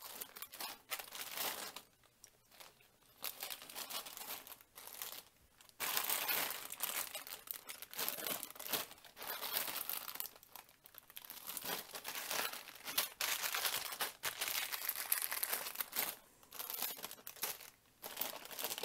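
Small plastic parts bags crinkling and rustling as a pile of plastic building-brick pieces is rummaged through, in bursts with short pauses.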